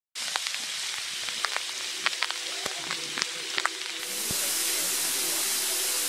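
Small waterfall splashing onto rock: a steady hiss of falling water, dotted with sharp irregular drips and splashes, turning into a louder, steadier rush about four seconds in.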